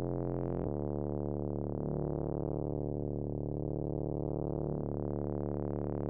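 Background music of sustained synthesizer and electric-piano chords, changing chord every second or few.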